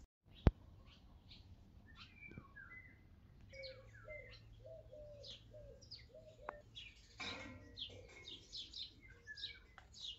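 Birds chirping and calling: quick high chirps and short sliding whistles, with a lower short note repeated about half a dozen times in the middle. A single sharp click about half a second in is the loudest sound.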